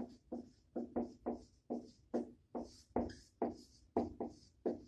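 Marker writing on a whiteboard: a quick run of sharp taps, nearly three a second, each ringing briefly through the board, with a scratchy swish of the felt tip sliding between them.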